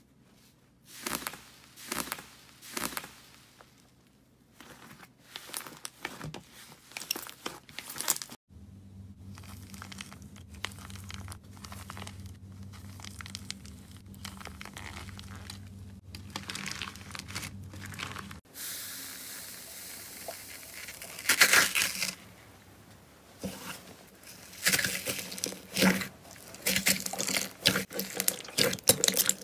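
Slime being squeezed and pressed by hand, giving sticky crackles, clicks and pops in a few short clips. The middle stretch has only sparse soft clicks over a steady low hum; the crackling is densest and loudest near the end, as hands push into a bowl of glossy slime.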